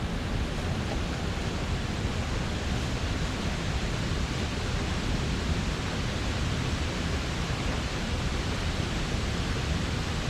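Mountain stream running: a steady, even rush of water.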